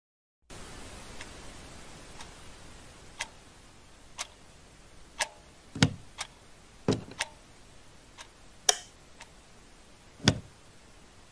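Clock ticking steadily about once a second, with a few louder, duller knocks among the ticks.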